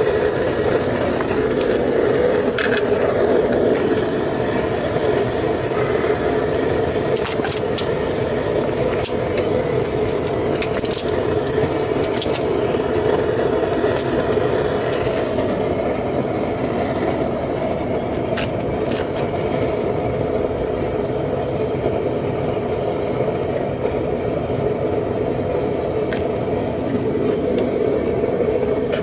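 Homemade propane-fired foundry furnace burner running steadily, a continuous rushing noise with a few faint clicks scattered through it.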